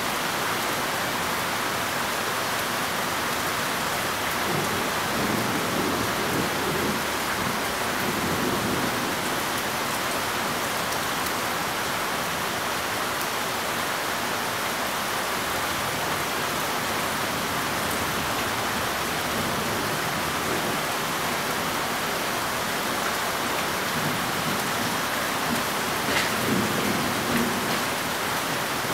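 Steady rain with rumbles of thunder rolling in, one a few seconds in and another near the end.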